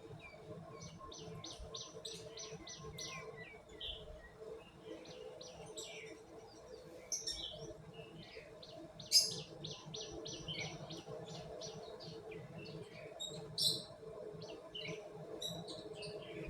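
Small birds chirping in quick runs of short notes, with a couple of louder sharp chirps around the middle and later, over a steady low hum.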